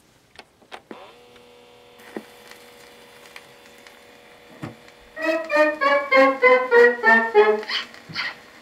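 A few clicks as the stylus is set on a 78 and the turntable's dust cover is closed, with a faint steady hum underneath; about five seconds in, a 1926 dance-band fox trot with brass starts playing from the shellac 78 through the record player's small built-in speakers.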